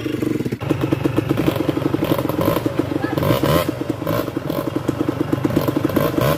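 Enduro dirt bike's engine running at low, steady revs with an even, rapid pulse. Short bursts of clatter and scraping break in around the middle and near the end.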